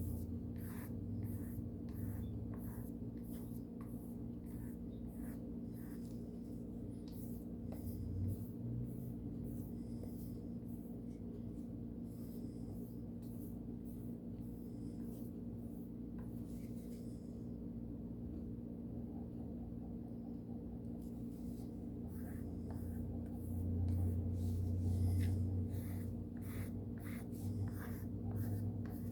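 Carbon steel pocket knife blade being stropped, drawn back and forth over a strop in brisk, regular strokes about two a second, with a pause of a few seconds past the middle. This final stropping hones the freshly sharpened edge.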